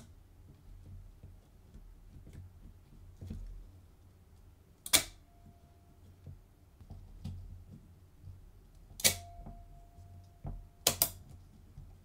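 The exposed winding and shutter mechanism of a Hasselblad 2000FC body is worked by hand while its winding cam alignment is tested. It gives three loud, sharp metallic snaps about four seconds apart, the last one doubled, with quiet ticks and clicks of the mechanism between. A faint high ring lingers briefly after the first two snaps.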